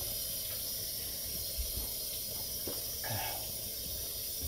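Steady hiss with a few faint, low gulps of a person drinking water from a mug.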